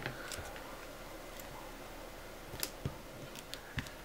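A few light, sharp clicks and taps of hands handling a small LCD panel, most of them in the second half, over faint room hiss.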